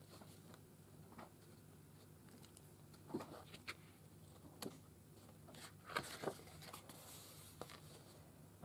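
Faint rustles and taps of a pad of 6x6 patterned scrapbook paper being leafed through sheet by sheet. A few brief strokes come scattered through the quiet, the loudest about six seconds in.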